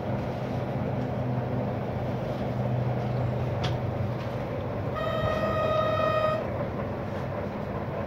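NE 81 diesel railcar under way, its engine and running gear giving a steady low hum, and about five seconds in the horn sounds once in a single steady tone for about a second and a half.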